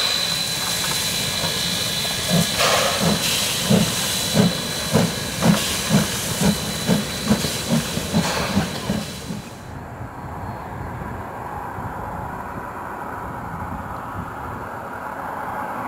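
Steam locomotive A428, built in 1909, starting away: a hiss of escaping steam, then a run of exhaust chuffs that come faster as it gathers speed. About ten seconds in, the sound cuts to a quieter, steady low rumble.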